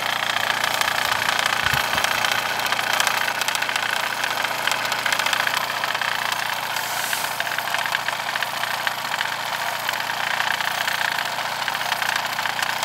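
Mamod SP4 model steam engine running steadily at speed, belt-driving a Wilesco toy cement mixer: a fast, even ticking over a steady hiss, with little of the usual Mamod rattle.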